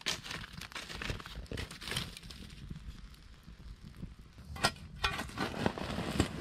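Wood fire of embers and a log crackling with scattered pops. About five seconds in, a spade starts scraping and digging into the ash and coals of the fire pit.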